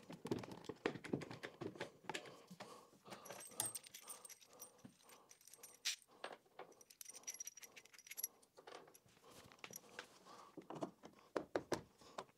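Faint metallic clinking and jingling of bolts and wing nuts being handled and fitted, with scattered small knocks and clicks as a plywood bracket holding a PVC pipe is fastened to a wooden bench.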